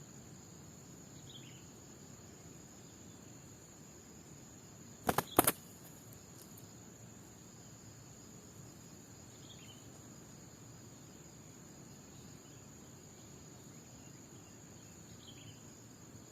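Steady high-pitched drone of crickets or other insects. Three faint short chirps fall in pitch, and two sharp clicks about five seconds in are the loudest sounds.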